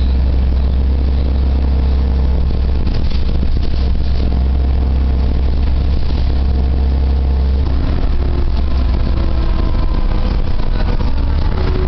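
A 1999 Orion VI bus's Cummins L10G natural-gas engine running under way, heard inside the passenger cabin as a steady deep rumble. About eight seconds in the rumble dips briefly, then a rising whine follows.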